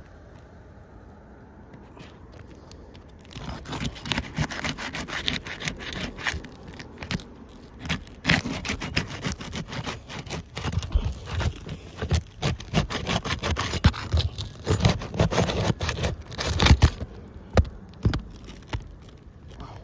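A hand pry tool scraping and prying under roof shingles to break their seal and reach the nails, with dense scraping, crackling and light taps. It starts a few seconds in and thins to a few clicks near the end.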